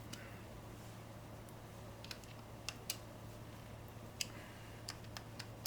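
Light, irregular clicks and ticks of small metal parts and hand tools being handled, about ten in all, over a steady low hum.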